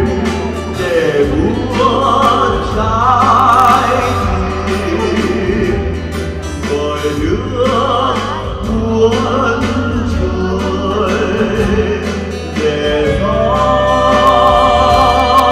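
A man singing a slow Vietnamese ballad with wavering vibrato, backed by a small band of acoustic guitar, keyboard and saxophone.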